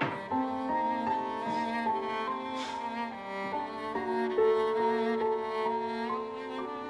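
Background score music: bowed strings, violin and cello, playing a melody of held notes.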